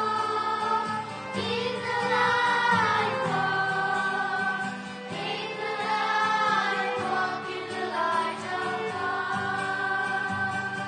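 Choir singing a hymn.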